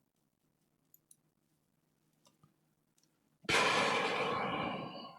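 A few faint light clicks, then about three and a half seconds in a long, loud sigh (a breathy exhale) that fades away over under two seconds.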